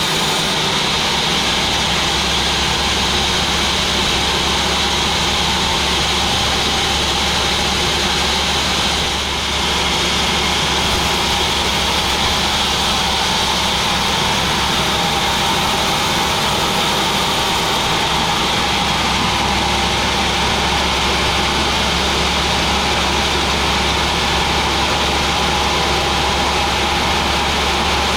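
Sawmill machinery running steadily: a continuous low hum with a hissing whine over it, dipping slightly for a moment about nine seconds in.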